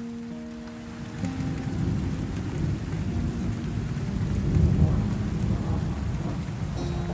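Held musical notes give way, about a second in, to rain and rolling thunder, with the loudest low rumble near the middle. Faint sustained music tones continue underneath.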